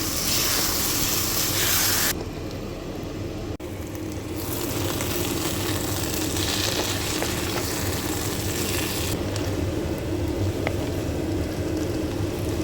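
Pieces of taro root (arbi) sizzling as they fry in oil in a pan, a steady hiss over a low hum. The sizzle is loudest for the first two seconds and changes abruptly a few times.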